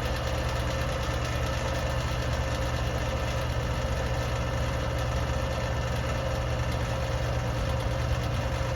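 R-410A split air-conditioning system running with a steady, even mechanical hum.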